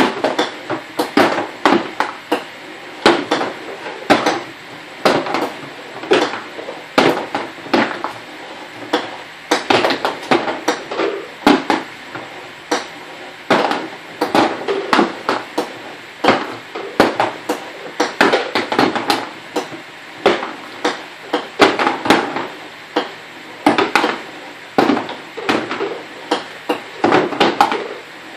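Golf balls knocking and clattering as they run through a homemade golf ball sorter and drop into cardboard boxes: an uneven run of sharp hard knocks, a few a second.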